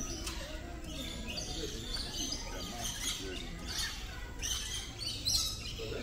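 Many aviary birds chirping and calling together, a dense mix of short high chirps overlapping without pause.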